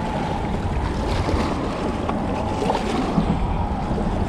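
Wind buffeting the microphone over small waves lapping against shoreline rocks, a steady low rumble with no distinct events.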